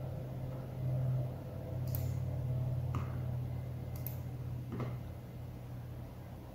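Steady low electrical hum with four short computer-mouse clicks about a second apart.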